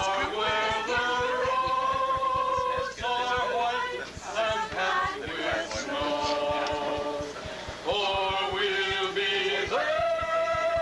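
A group of men and women singing a song together, with long held notes.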